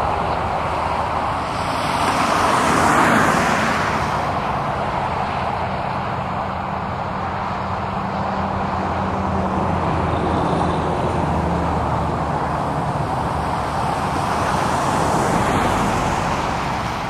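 Twin-engine business jet's rear-mounted turbofans at takeoff thrust during the takeoff roll and liftoff: a loud, steady roar with a low rumble underneath, swelling about three seconds in and again near the end.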